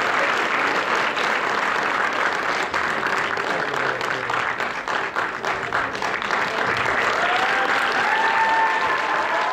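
Audience applauding after a dance performance, with dense clapping throughout and a few long, high cheering calls near the end.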